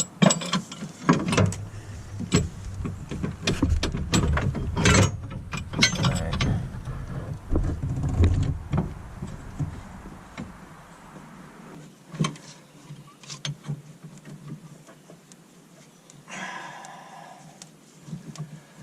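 Clanks, knocks and rattles of metal hydraulic fittings, hoses and tools being handled while plumbing a skid steer, dense for the first half and then sparse, with a short scraping rustle near the end.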